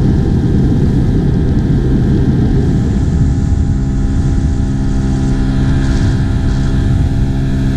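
Outboard motor of an inflatable boat running at speed along the coast, a loud steady drone. For the first few seconds it is mixed with a rough, rushing rumble, and from about three seconds in a steadier engine note stands out.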